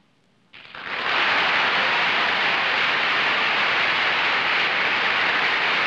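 Studio audience applauding, starting suddenly about half a second in and holding steady.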